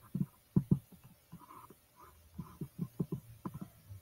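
A dozen or so soft, irregularly spaced low thumps and taps, with a faint hum between them.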